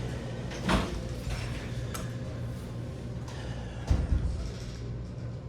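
Handling knocks and clicks at coin-operated toy vending machines: a sharp knock about a second in, a small click, and a heavier knock with a short rattle near four seconds. A steady low machine hum runs underneath.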